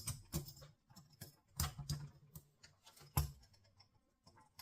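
Handcuffs clicking and clinking in irregular bursts of sharp metal ticks and rattles as they are worked at during an escape attempt.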